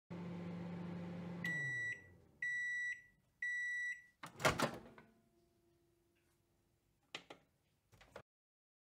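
Microwave oven running with a steady hum that winds down as it finishes, then three beeps. A loud clunk follows as the door opens, with a couple of short clicks near the end.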